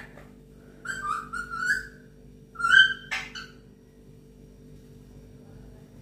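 Alexandrine parakeet giving two short bursts of high chirping, whistle-like calls, about a second in and again near three seconds in.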